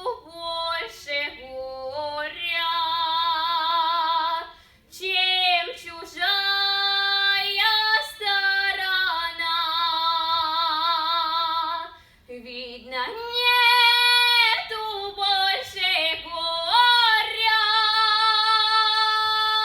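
A girl's voice singing a Russian folk song unaccompanied in folk-vocal style. She holds long notes with a wide vibrato and slides between notes, with two short pauses about five and twelve seconds in.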